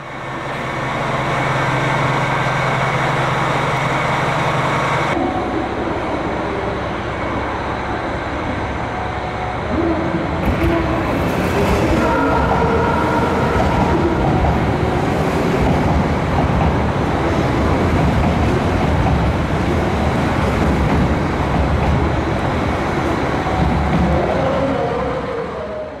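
Electric trains running along a station platform, a steady hum and rumble of motors and wheels on rail. The sound changes abruptly about five seconds in and grows louder and rougher about ten seconds in.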